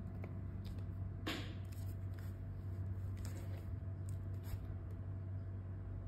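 Steady low hum with a few faint clicks and one brief, sharper rustle about a second in, from a hand handling a plastic WiFi door sensor and letting go of its set key.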